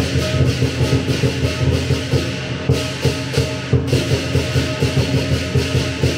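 Lion dance percussion: a big drum with clashing cymbals and gong, playing a fast, even beat.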